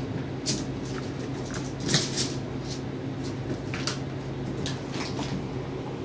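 Ferrets scampering and tussling over a shiny fabric sheet, making irregular rustles and crinkles that are loudest about two seconds in, over a steady low hum.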